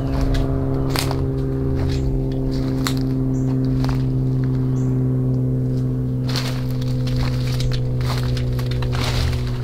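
Footsteps crunching through dry leaf litter and snapping twigs on an overgrown path, with a few sharp cracks. Under them runs a steady, low, droning background music chord that shifts slightly about two-thirds of the way through.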